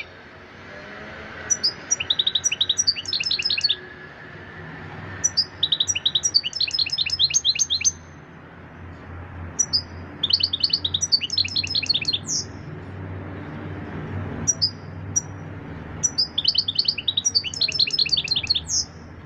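European goldfinch singing: four phrases of rapid, high twittering notes, each a few seconds long, with short pauses between them.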